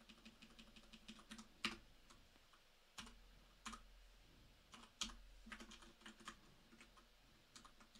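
Faint typing on a computer keyboard: scattered, irregularly spaced keystrokes.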